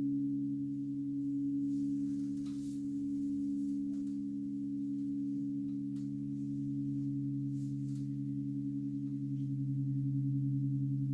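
Several Crystal Tones alchemy crystal singing bowls ringing together, sustaining pure low tones that slowly swell and fade. Near the end the highest tone takes on a fast wavering beat.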